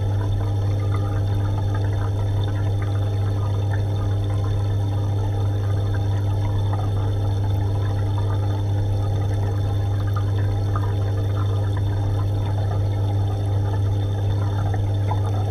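Aquarium pump and filter running: a steady low hum with water trickling and bubbling into the tank.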